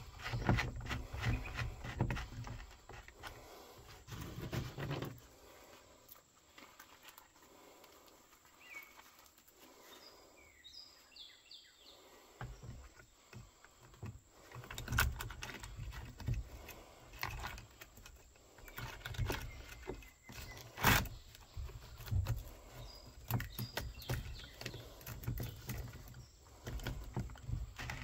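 Irregular clicks, clinks and rustles of a steel saw chain and gloved hands handling it as the chain is fitted back around a DeWalt 20V chainsaw's bar and sprocket. One sharp click about 21 seconds in is the loudest. A few faint bird chirps come through in the quieter stretch near the middle.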